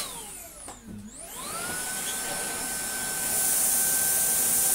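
Numatic NBV190NX cordless Henry vacuum's motor dips, then spins up over about half a second to a steady, higher whine as it is switched up from low to its high setting. From about three seconds in, a louder rushing hiss joins it as the floor tool is pushed over the sawdust on the carpet.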